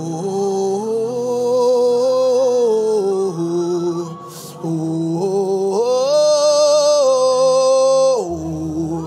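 A man's voice chanting wordlessly into a microphone in long held notes that step up and down in pitch. The longest note, held about two seconds, drops near the end.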